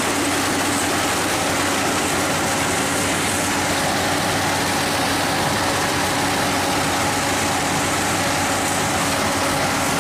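Rice combine harvester running steadily while cutting, its engine hum and machinery a constant dense noise that does not change.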